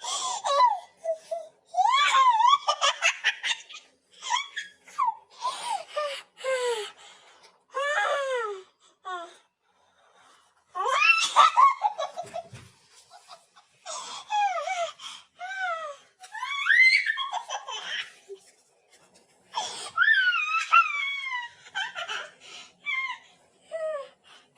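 A baby laughing: high-pitched squealing giggles and belly laughs in repeated bouts with short pauses for breath between them.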